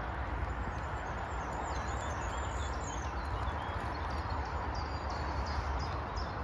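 Outdoor ambience: a steady wind rumble on the microphone, with small birds chirping high and repeatedly in the background.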